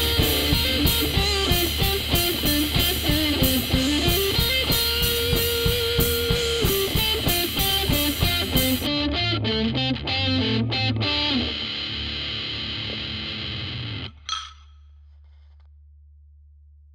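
Rock band with distorted electric guitars and drums playing the close of a song. The drums stop about nine seconds in and the guitars ring out. A short sharp sound comes about fourteen seconds in, and a low tone lingers and fades.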